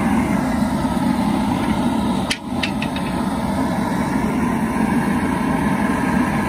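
Propane burner of an outdoor crawfish-boil cooker running at full flame under a large aluminum pot, a loud steady rushing sound. A few brief light clinks come about two and a half seconds in.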